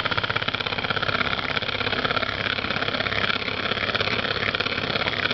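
Electric mixer running at a steady speed with a fast, even buzz, beating eggs.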